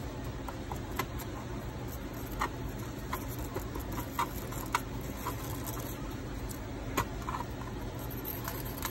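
A handful of light metal ticks and scrapes as a thin pick picks charred mold debris off a small freshly cast metal piece held in pliers over a steel sheet pan, over a steady low hum.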